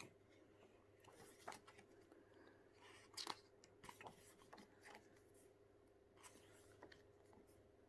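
Faint, scattered paper rustles and soft clicks as the glossy pages of a thick photo book are handled and turned.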